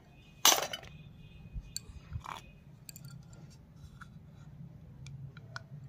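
Small plastic and steel toy kitchen pieces being handled: a sharp clink with a short ring about half a second in, as a piece is set down on a concrete floor, then light clicks and taps as a small plastic toy microwave is picked up and turned in the hands.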